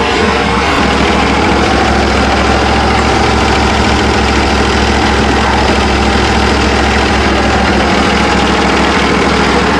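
Engine of a Norwood HD38 portable bandsaw mill running steadily.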